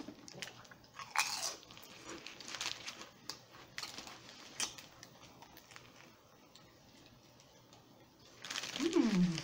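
Close-up biting and chewing of a toasted sub sandwich (an Italian club of ham and salami): crisp bread crunching in a run of short crunches through the first half, then quieter chewing. Near the end comes a louder burst with a short low hum falling in pitch.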